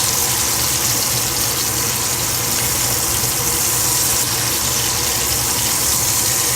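Steady, loud rushing noise with a low hum underneath, unbroken throughout.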